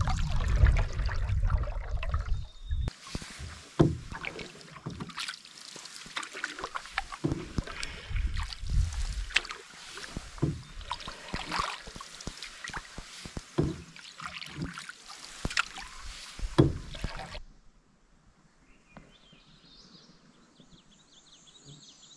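Canoe paddling in light rain: irregular splashes, drips and patter of water around the canoe, with wind rumbling on the microphone for the first few seconds. About seventeen seconds in it cuts to a much quieter stretch with a short high chirping trill near the end.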